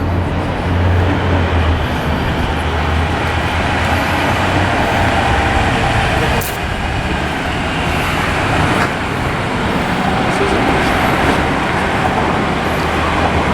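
Heavy diesel sand truck running, a low engine rumble over a steady rushing noise; the rumble is strongest in the first couple of seconds.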